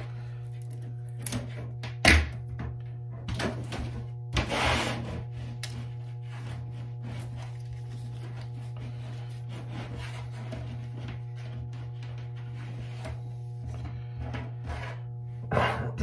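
Steady background music with held tones, over hand-tool work on a fiber drop cable being stripped of its outer jacket: a sharp snap about two seconds in, a scraping rasp a couple of seconds later, and a few light knocks.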